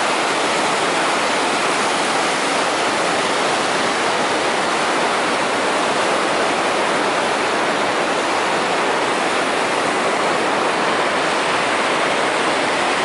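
Steady rush of falling water from Khone Phapheng Falls, the large cascade on the Mekong River, an even unbroken roar without change.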